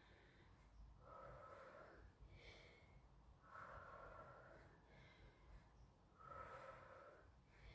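Faint, slow breathing of a woman exercising on all fours, one breath about every two and a half seconds.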